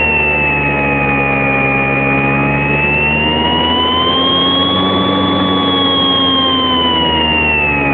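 Electric motor and propeller of a radio-controlled Cessna 182 model plane in flight, heard from a phone mounted on its side. A steady whine rises slowly in pitch to a peak about five seconds in, then falls toward the end, over a constant rush of wind on the microphone.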